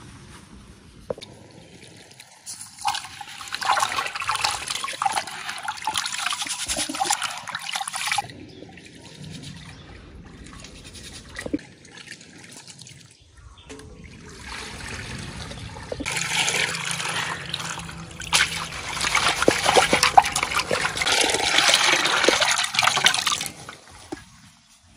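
Water swishing and sloshing in a metal basin as a woven bamboo basket is dipped and worked by hand in it, washing its contents, in two spells of several seconds each.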